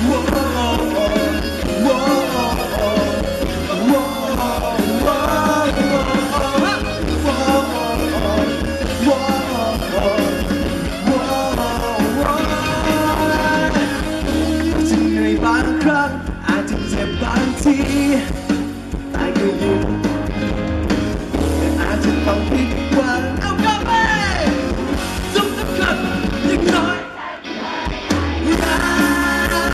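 Live rock band playing, with drums and guitar, while a male singer sings into a microphone. The band drops out briefly near the end, then comes back in.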